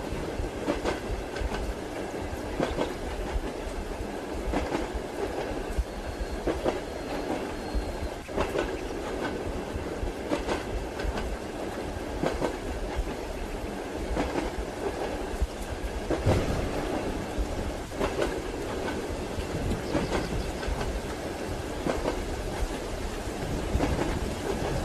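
Railway carriage running at speed: a steady rumble and hiss with the wheels clacking over rail joints every second or two.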